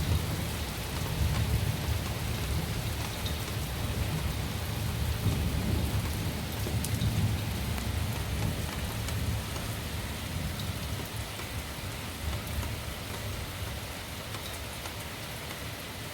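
Rain falling steadily with a long, low roll of thunder rumbling underneath, which slowly fades away over the second half.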